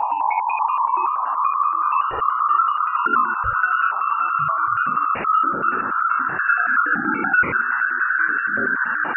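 Sonification of radio waves recorded by NASA's Juno spacecraft during its Ganymede flyby, plasma-wave data shifted into the audible range. It is an eerie electronic warble made of rapid pulses, slowly rising in pitch.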